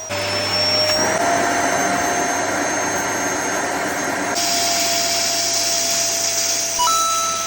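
Vacuum cleaner running steadily, a rushing hiss with a motor whine. About four seconds in, the hiss turns louder and sharper.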